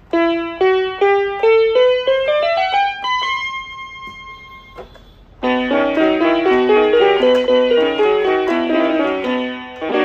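Bigfun BF-630A1 61-key toy electronic keyboard played through its built-in speakers: a quick rising run of single notes that speeds up and ends on one held, fading note. About five and a half seconds in, a busier passage starts, with several notes sounding at once.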